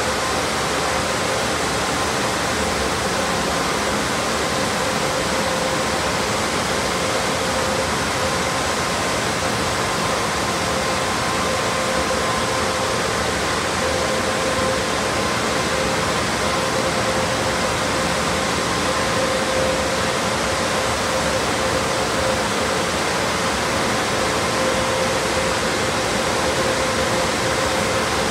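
Automatic car wash blower dryers running: a loud, steady rush of air with a faint steady hum underneath.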